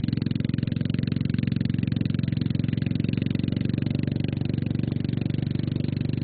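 A small engine idling steadily, with an even, fast pulse that holds constant.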